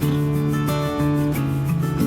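Background music: a gentle acoustic guitar piece with plucked notes changing every half second or so.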